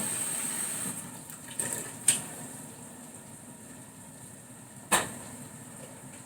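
Kitchen handling noises: a steady hiss fades about a second in, followed by a few small knocks and two sharp knocks, about 2 and 5 seconds in.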